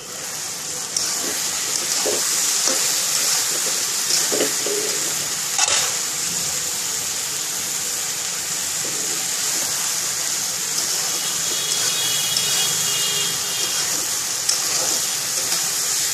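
Green jackfruit pieces sizzling in hot oil in a frying pan. The steady hiss starts about a second in, once the lid is off, and a metal spatula scrapes and knocks against the pan as the pieces are stirred.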